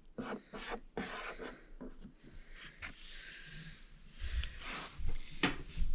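Rubbing, light clicks and knocks of hands handling the fridge and its fittings, with a few heavier low knocks near the end.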